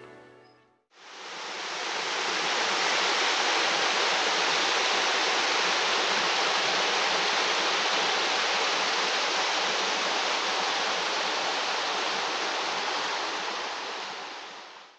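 Small forest stream rushing down a stepped cascade of water: a steady, even rush that fades in about a second in and fades out near the end.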